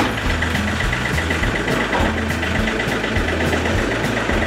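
John Deere compact tractor's Yanmar diesel engine running steadily at low speed, about a minute after a cold start, as the tractor creeps forward. A sharp click comes right at the start.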